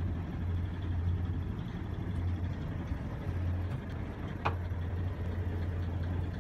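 A sailing catamaran's inboard diesel engine drones steadily as the boat motors under way. There is one short click about four and a half seconds in.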